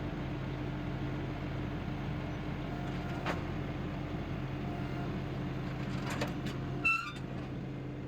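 Woodland Mills HM126 portable band sawmill's gas engine running steadily, with a short high squeak near the end.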